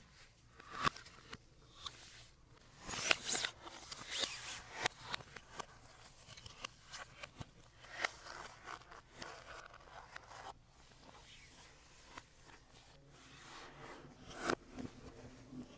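Packaging and parts being handled by hand: rustling and crinkling with scattered light clicks and knocks, busiest a few seconds in.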